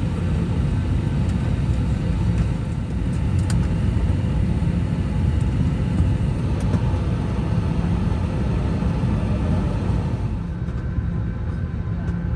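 Steady low rumble of an airliner's cabin noise heard from a passenger seat, with a few faint clicks; the higher hiss eases about ten seconds in.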